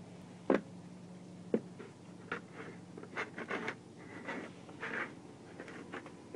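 A dog in a plastic cone collar struggling on stairs: two sharp knocks about half a second and a second and a half in, then scattered scrapes and scuffs as the cone and paws catch on the steps.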